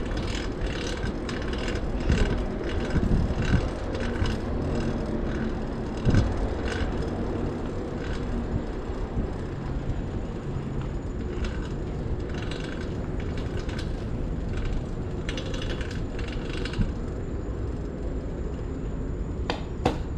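Fixed-gear bicycle being ridden: the drivetrain clicks and rattles in quick repeated ticks over steady wind and road noise. The drivetrain is loud, which the rider puts down to a new cog.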